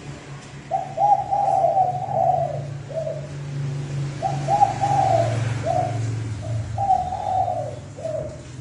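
Spotted dove decoy bird cooing, its call used to lure wild males: three phrases, each a run of rolling coos followed by one short final note, over a low steady hum.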